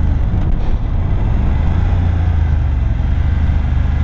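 BMW F 750 GS motorcycle's 853 cc parallel-twin engine running steadily at low speed while riding, with no change in pitch.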